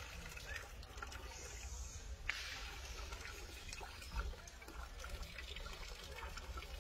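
Thin stream of water trickling from a stone spout into a small basin below, with a steady low rumble underneath and a sharp click about two seconds in.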